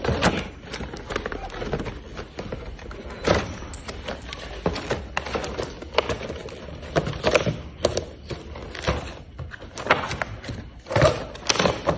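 Cardboard toy box being handled and pulled open: irregular knocks, thuds and scrapes of the box and its packaging.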